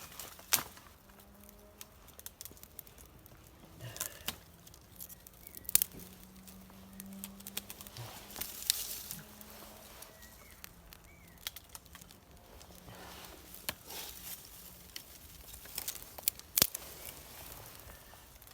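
A ferrocerium fire steel being struck again and again to throw sparks onto tinder: irregular sharp scrapes and clicks several seconds apart, with faint crackling and rustling between strikes.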